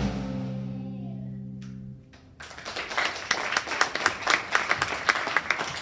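A song's final chord is held and fades out over about two seconds. Then an audience breaks into applause, dense clapping that carries on to the end.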